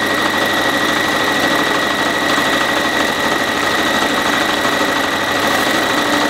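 Bernina activa 130 electronic sewing machine running continuously at a steady speed while stitching a seam, a fast even needle rattle with a steady high motor whine at one pitch throughout.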